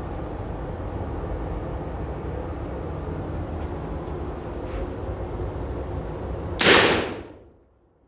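A single shot from a Rossi Puma .44 Magnum lever-action carbine about six and a half seconds in, over a steady low background rumble. The report dies away over about a second.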